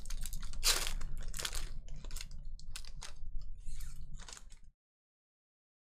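Foil wrapper of a Panini Contenders Football trading card pack being torn open and crumpled by hand: a run of sharp crinkling crackles that cuts off suddenly about four and a half seconds in.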